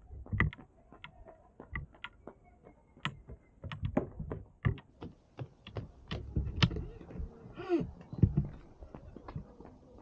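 Footsteps of a person on foot, a quick irregular series of sharp steps. A brief pitched sound glides up and down about eight seconds in.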